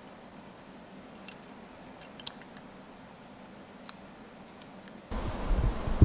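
A few faint, scattered small clicks and taps over a quiet background. About five seconds in, a much louder rushing noise cuts in suddenly, with a fast, even ticking in it.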